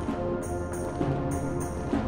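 Concert band playing held brass and woodwind chords over a steady beat of high metallic percussion.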